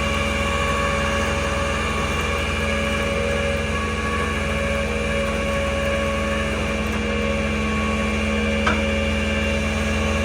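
Tow truck's engine running at a steady speed, a constant drone with a steady whine over it, and a single click near the end.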